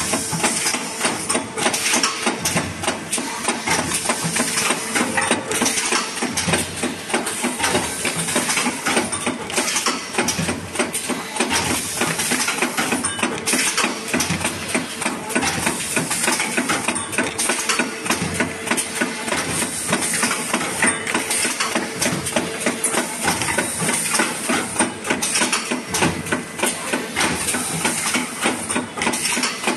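JBZ-500E 30-ton hydraulic paper plate machine running: a dense, rapid clatter of knocks over a constant high hiss, with a steady hum that fades out about three quarters of the way through.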